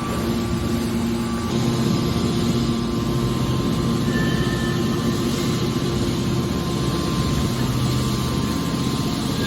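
Hydraulic scrap-metal baler running: a steady, loud drone from its motor and hydraulic pump, with a low, even hum.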